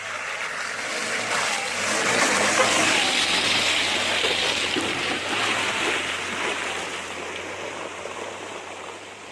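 Rushing, splashing water, swelling for about three seconds and then slowly fading.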